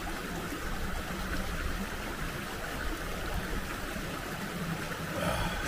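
Shallow mountain stream running over rocks: a steady rush of water.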